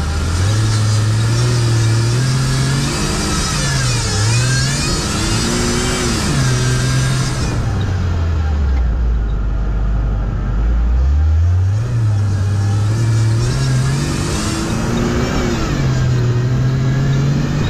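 Off-road sprint car's engine being driven hard, its pitch repeatedly climbing under throttle and dropping through gear changes and lifts. About eight seconds in it falls to a low, steady drone for around three seconds, then revs up again.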